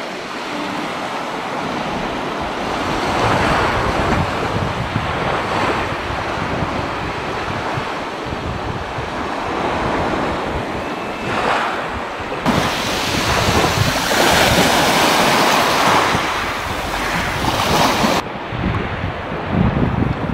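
Sea waves washing and lapping at the shore, with wind buffeting the microphone. The rushing noise swells and ebbs, and its character changes abruptly twice, about twelve and eighteen seconds in.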